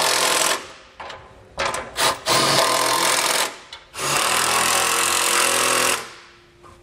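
Milwaukee cordless impact driver with a 16 mm socket hammering bolts tight, in several bursts, the longest about two seconds.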